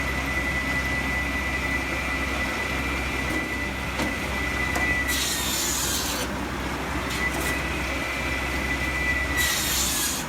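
Tractor PTO-driven circular log saw running, its spinning blade giving a steady high whine over the tractor's low engine hum. Twice, about halfway through and again near the end, the whine sags with a burst of hissing as the blade cuts into a log.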